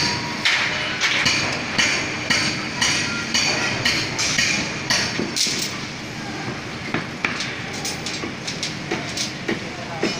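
Construction-site hammering on metal, about two strikes a second, thinning to scattered clanks and knocks after about six seconds.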